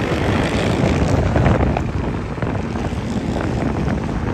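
A boat's motor running steadily, mixed with a rush of wind and water.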